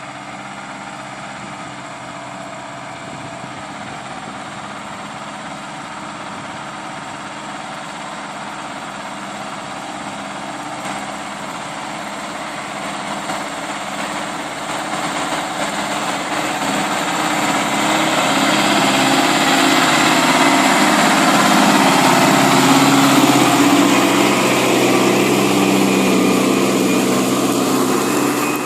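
Valtra N123 tractor's diesel engine running under heavy load while ploughing deep, heavy soil. The engine is steady, growing louder over the second half and easing slightly near the end.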